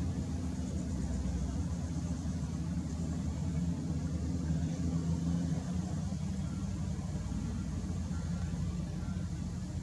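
Hitachi ZW310 wheel loader's diesel engine working steadily under load as the loader lifts a bucket of sand and pulls away from the pile, easing off a little about six seconds in.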